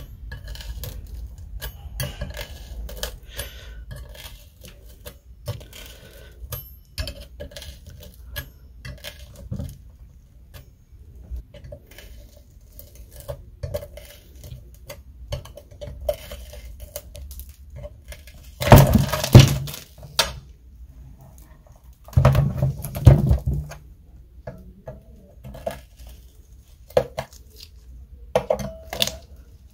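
Metal fork scraping and tapping on a waffle iron's nonstick plate, prying up hardened, burnt lollipop candy, with many small clicks. There are two louder bursts of scraping past the middle.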